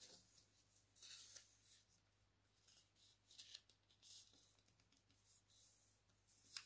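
Faint rustling and scraping of a sheet of paper being folded and pressed flat by hand, in a few short strokes.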